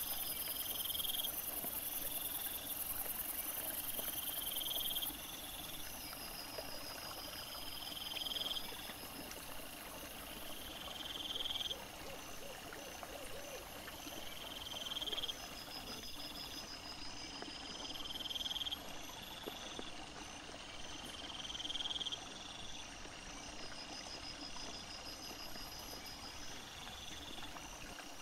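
Chorus of night insects calling over a steady hiss: short rising chirps repeat about every three and a half seconds, between longer pulsed trills.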